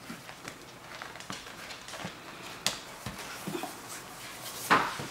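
Upholstery fabric sample books being handled: swatch pages rustling and flapping as they are turned, with soft knocks of the book on the table and a louder swish near the end.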